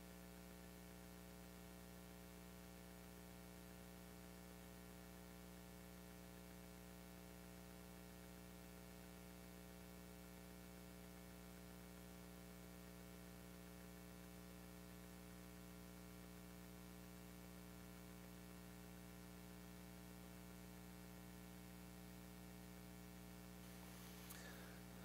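Near silence, with a steady electrical mains hum and a faint hiss.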